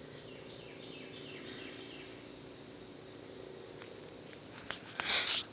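Steady high-pitched insect trill, with a short breathy rush near the end.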